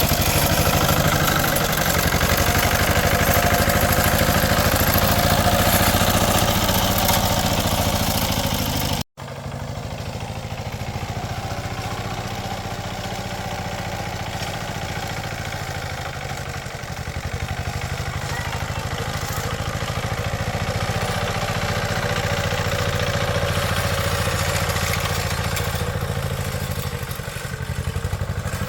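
A small engine running steadily with some clatter. It breaks off abruptly about a third of the way in and resumes a little quieter.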